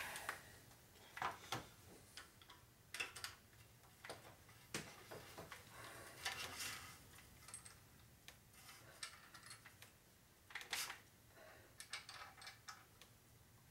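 Faint, scattered metallic clicks and clinks of a cylinder hone being handled and set in the cast-iron bore of a Ford four-cylinder flathead block, with the drill not running. One knock about three-quarters of the way through is the loudest.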